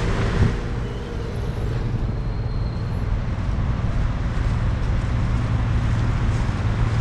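Road traffic on a city street: a steady rumble of passing cars, with one vehicle's engine fading away in the first half second.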